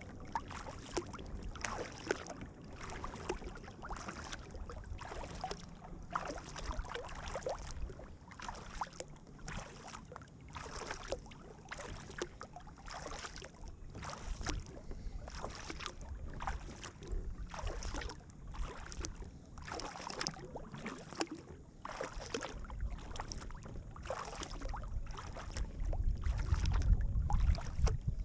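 Kayak paddle strokes: the blades dipping and pulling through the water with splashes and drips, about one a second. Wind rumbles on the microphone over the last few seconds.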